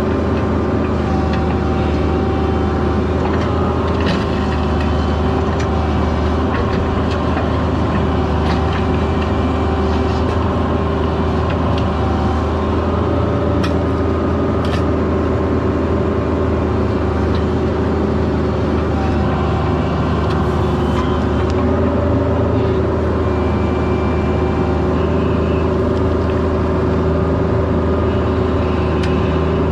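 Diesel engine of a CAT 304 mini excavator running steadily under work, with a few brief metallic knocks.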